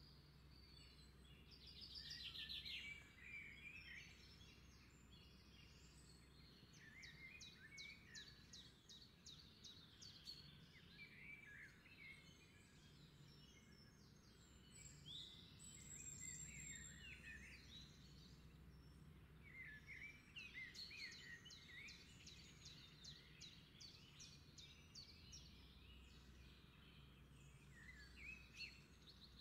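Faint wild birds calling and singing: scattered chirps and several rapid trills, over a low steady hum.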